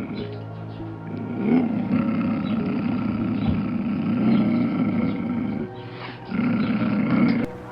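Deep animal growling in two long stretches, the second shorter, over steady background music.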